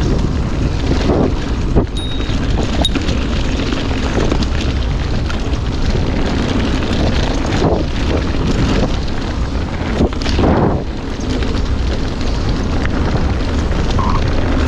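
Wind buffeting the microphone and tyres rumbling over a dirt forest trail as an electric mountain bike rides fast downhill, with a couple of sharp clicks about two seconds in and a louder gust of rumble about ten seconds in.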